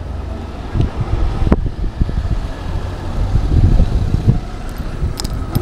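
Wind buffeting the microphone and road rumble while riding an electric scooter, with a faint steady whine. A sharp click comes about a second and a half in, and a few more clicks near the end.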